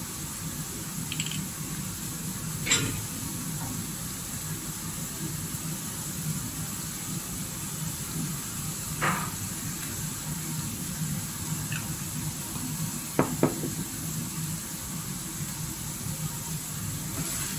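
Diced eggplant and minced beef frying in a wok with a steady, low sizzle, broken four times by short knocks of a wooden spoon and sauce bottle against the pan, two of them close together near the end.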